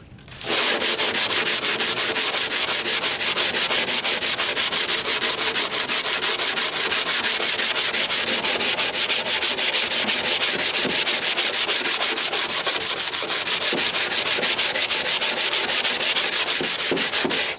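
Hand sanding on a fibreglass canoe hull with 80-grit paper wrapped on a broad sanding block: quick, even back-and-forth scrubbing strokes, starting about half a second in. The paper is fairing down freshly patched spots of chop strand and resin.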